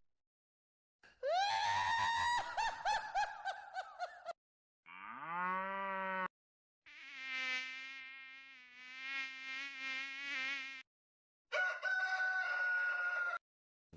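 A run of separate comedy sound effects with short silences between them: a wavering, trembling call, then a quick rising glide, then a long buzzing tone that wobbles slightly, then a shorter steady high tone.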